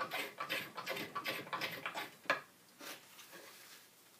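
Twca cam crook knife slicing thin shavings from green cherry wood: a quick run of short scraping strokes, about four a second, ending in a sharp click a little over two seconds in, then only faint rustling as shavings are cleared from the hollow.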